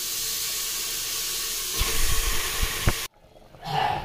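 Pork pieces sizzling in a hot aluminium pressure cooker, a steady frying hiss with a few soft thuds as more pieces drop in about two seconds in. The sizzle cuts off abruptly about three seconds in.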